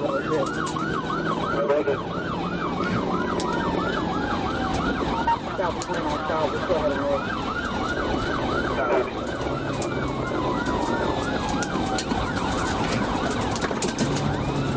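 Police patrol car siren in a fast yelp, rising and falling about four times a second, changing about nine seconds in to a slower wail with long falling sweeps. The cruiser's engine and road noise run beneath it, and a second, higher siren sweeps slowly and faintly above it.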